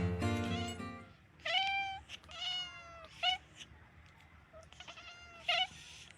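Domestic cats meowing: two drawn-out meows, then shorter and fainter ones. Acoustic guitar music stops about a second in.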